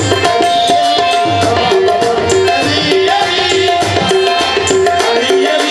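Qawwali music: harmonium playing a short, repeating melodic phrase over tabla drumming.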